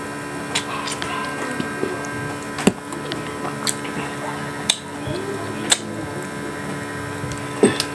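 Close-mic eating sounds: wet chewing and smacking of a handful of rice and fish, with sharp clicks about once a second.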